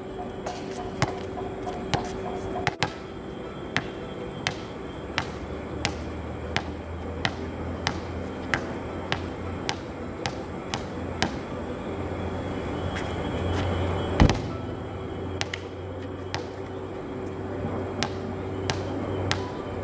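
Basketball being dribbled on a hard court, bouncing about once every two-thirds of a second, with one much louder thud about 14 seconds in.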